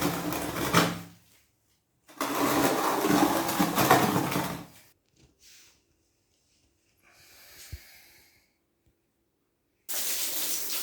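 A small motor running in bursts of a few seconds with pauses between: one stops about a second in, another runs from about two to five seconds, and another starts near the end.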